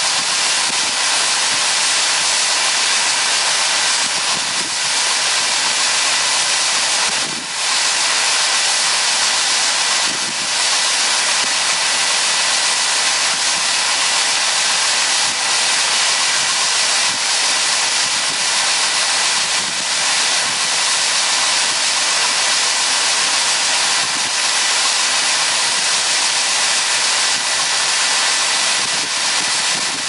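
Soybeans pouring from a grain cart's unloading auger into a semi's grain trailer: a steady, loud hiss.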